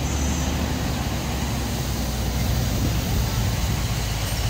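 Wind buffeting the phone's microphone outdoors: a steady low rumble with a hiss over it.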